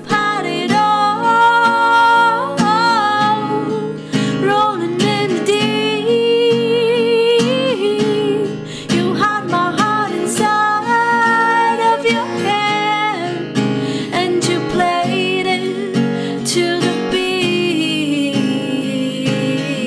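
A woman singing, accompanied by her own strummed acoustic guitar, her voice holding and bending long notes over the chords.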